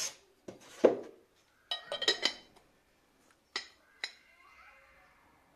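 Porcelain canisters and their lids clinking and knocking against each other and the polystyrene packing tray as they are handled: a loud knock about a second in, a quick run of clinks around two seconds, then two single clinks.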